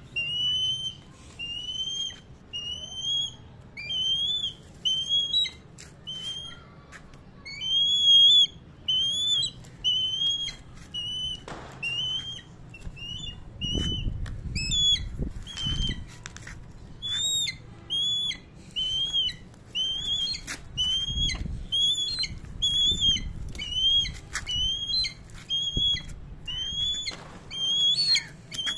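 Black kite calling over and over: a short whistled note, about one a second. A couple of low rustling stretches come in the middle.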